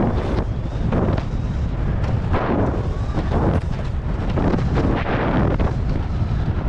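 Atomic Bent Chetler 100 skis hissing through deep powder snow in linked turns, a rush of snow about once a second, over a heavy low wind rumble on the GoPro Hero 9's microphone.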